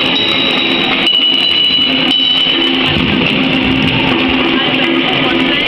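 Percussion ensemble playing kitchen utensils: steel plates, metal pots and tin cans struck in a dense, rapid clatter, over a steady high ringing tone.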